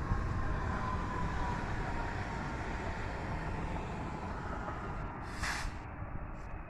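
Electric multiple-unit passenger train running past and moving away: a steady rumble of wheels on rail with a faint whine in the first couple of seconds, easing slightly towards the end. A brief hiss about five and a half seconds in.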